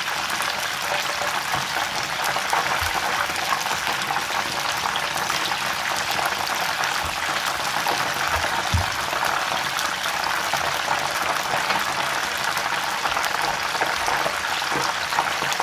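Battered fish deep-frying in hot oil in a saucepan: a steady bubbling sizzle, with a few soft low knocks around the middle.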